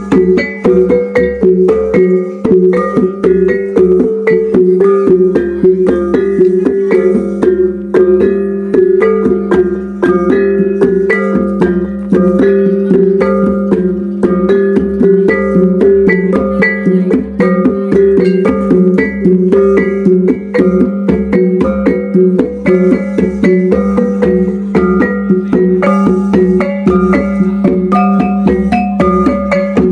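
Iban taboh gong music: a gong-chime struck in quick, busy melodic patterns over steady, sustained low gong tones, without a break.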